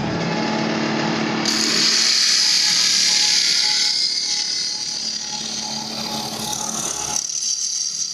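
6-inch paper core cutting machine running: steady mechanical noise with a low hum, joined about one and a half seconds in by a loud high hiss. Near the end the low hum drops away and the hiss carries on.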